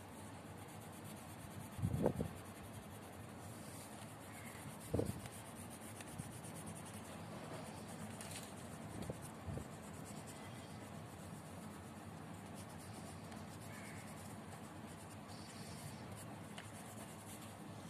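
Coloured pencil scratching on paper while shading in a drawing, with a couple of soft thumps about two and five seconds in.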